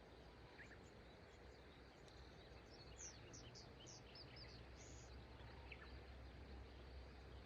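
Faint, steady rush of river water, with a small bird giving a quick run of about six high, falling chirps starting about three seconds in, and a few scattered chirps elsewhere.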